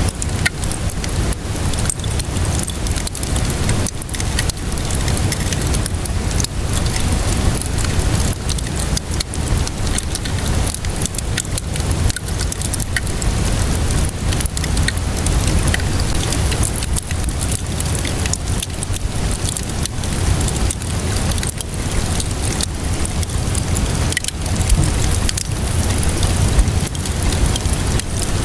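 Steady rainfall mixed with a crackling wood fire: a continuous hiss and low rumble, dotted with many small sharp pops and crackles.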